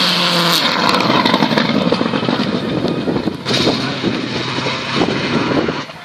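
Rally car engine running hard under load, heavy with road and wind noise, with a brief dip and surge about three and a half seconds in.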